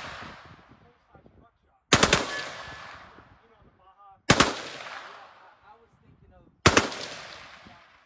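Browning M1919D belt-fed machine gun firing on full auto: three short bursts of a few rounds each, a little over two seconds apart, each trailing off in a long echo.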